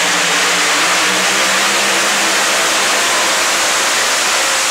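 Modified 4x4 pulling truck's engine running hard and loud at steady high revs under load as it drags the weight-transfer sled down the track.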